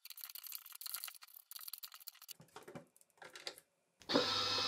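Faint, scattered clicks, taps and rustles of hands handling and seating a 3D-printed plastic lever arm on the drive's output. About four seconds in, a steady low hum cuts in.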